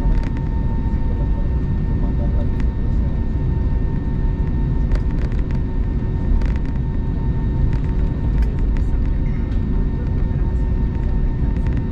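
Airbus A220 cabin noise while taxiing: the steady low rumble of its Pratt & Whitney PW1500G geared turbofans at taxi power, with a steady whine running through it and scattered light clicks and rattles.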